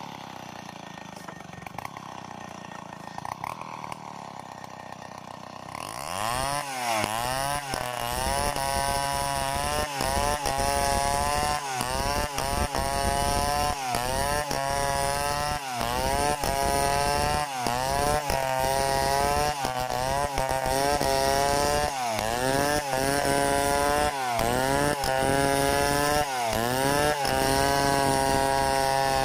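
Stihl 070 two-stroke chainsaw ripping a log lengthwise into boards at full throttle. It is quieter for about the first six seconds, then loud, with the engine pitch dipping and recovering about every two seconds under load in the cut.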